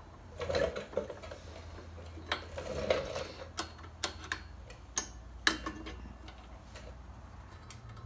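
Scattered sharp clicks and taps of a brake pad and its retaining pin being worked into a Harley-Davidson front disc brake caliper, about half a dozen at irregular intervals.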